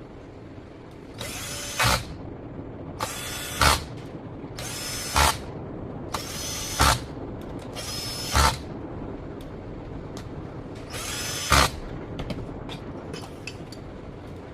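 A power tool run in six short bursts, each lasting under a second and ending in a sharp knock.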